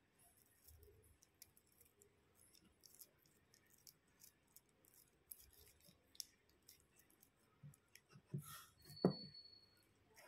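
Faint sticky clicks and crackles of slime being kneaded and pressed by hand in a plastic bowl, with a few louder soft thumps near the end.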